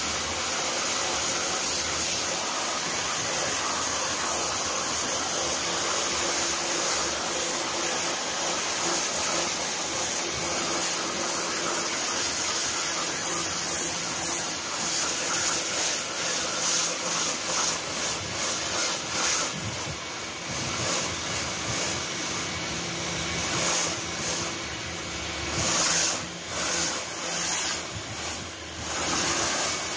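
Pressure-washer jet spraying water onto styrofoam hydroponic boards: a loud, steady hiss of high-pressure water that becomes uneven in the second half, surging and dropping.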